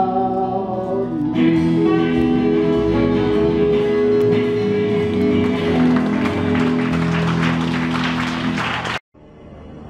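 Country jam band of electric guitar, acoustic guitars and steel guitar ending a song, the last chord held and ringing while audience applause builds over it. The sound cuts off suddenly about nine seconds in, and different music fades in quietly after it.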